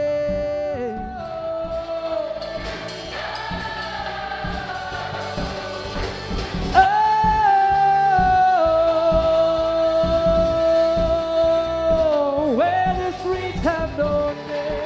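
Live rock band with a male lead vocal holding long, drawn-out notes; a higher held note comes in about seven seconds in and steps down partway, over a steady drum beat.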